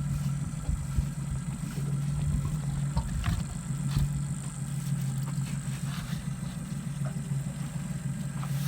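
Vehicle engine idling steadily, with a low rumble and a few faint clicks over it.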